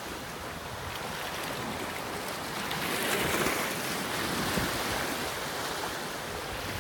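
Indian Ocean waves washing in at high tide as a steady rush of surf, swelling louder for about a second roughly three seconds in.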